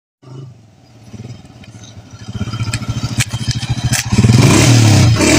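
A small motorcycle engine putters closer, getting steadily louder, then runs loud close by near the end as the bike pulls up.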